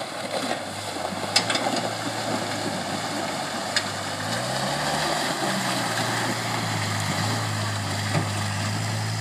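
Land Rover Series engine pulling under load as the truck crawls through a muddy, rocky creek bed, with the engine note sagging and recovering about halfway through and a few sharp knocks in the first few seconds.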